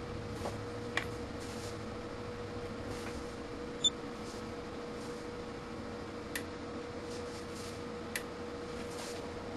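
Steady electrical hum from a high-voltage surge-test bench, with a few sharp clicks, the loudest about four seconds in.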